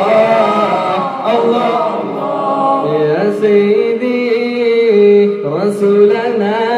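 Unaccompanied male voice singing an Arabic nasheed, drawing out long held notes with slides between pitches.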